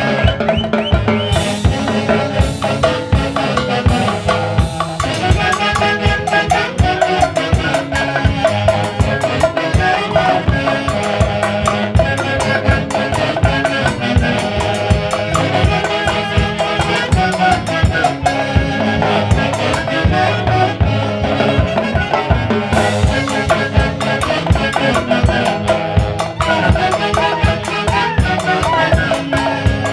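A band playing live: a melody over drums and percussion with a fast, steady beat.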